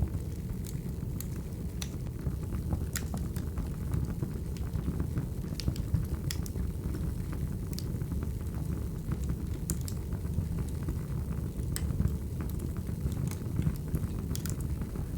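Crackling wood fire: a steady low rumble of burning with sharp pops and snaps at irregular moments, a few each second.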